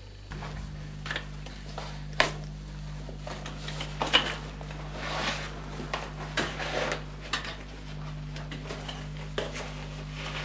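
Irregular metallic clinks, knocks and scrapes of a caver climbing down a wire caving ladder with metal rungs in a narrow rock shaft, with a steady low hum underneath.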